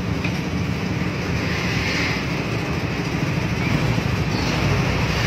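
Steady low rumble of traffic at a standstill: many motorcycle and truck engines idling in a jam.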